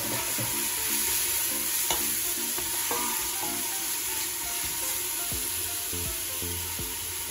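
Chopped onion and garlic sizzling in hot oil in a stainless steel pot, stirred with a wooden spoon that now and then scrapes or taps the pot.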